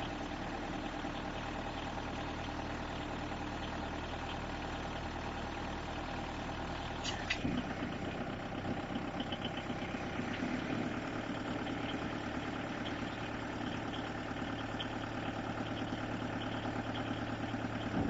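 A 2.5-ton diesel forklift's engine running steadily at idle. About seven seconds in there is a sharp clack, and the engine note changes after it.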